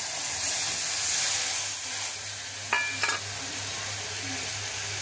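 Tamarind water hitting hot oil in a kadai with fried dry chillies and panch phoron: a loud sizzling hiss as it boils up in steam, easing off over the seconds. Two short metallic clinks a little under three seconds in.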